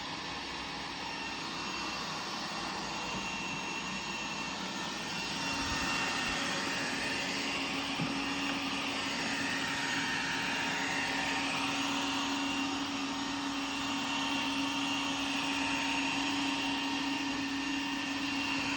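Robot vacuum cleaner running: a steady whirring hum, which grows a little louder about five seconds in as a steady tone joins it.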